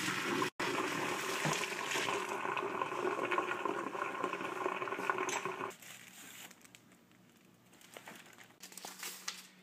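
Hot pasta water poured from a stainless steel pot through a metal mesh colander into a sink, a steady splashing rush that stops abruptly about six seconds in.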